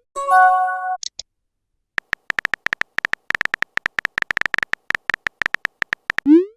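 Electronic sound effects: a held synthesized tone of several notes lasting about a second, then two short high blips. After a short pause come several seconds of rapid, irregular clicking, and near the end a quick rising glide leads into another synthesized tone.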